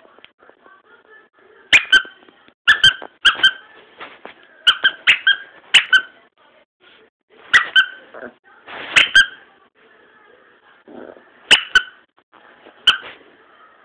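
Young red-nose pit bull puppy giving short, high-pitched yipping barks, often two in quick succession, with pauses between: a puppy's first attempts at barking.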